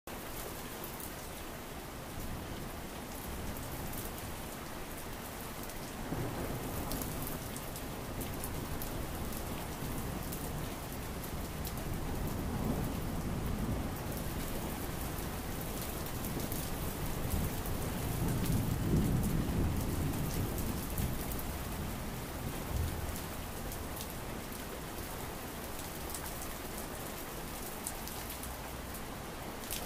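Steady rain falling with fine pattering drops, under low rumbles of thunder that swell and fade about three times, the loudest about two-thirds of the way through.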